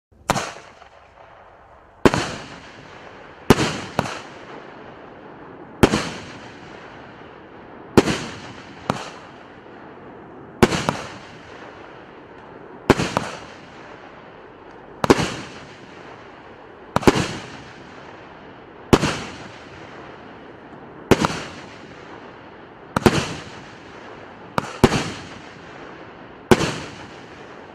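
A 16-shot, 30 mm (1.2-inch) consumer fireworks cake firing: about sixteen sharp bangs, one every one to two seconds, each dying away quickly, over a steady hiss.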